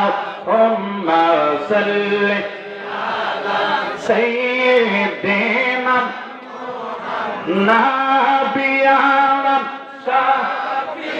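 A man's solo voice chanting a melodic Islamic milad recitation, in long phrases with held, wavering notes. He pauses briefly twice between phrases.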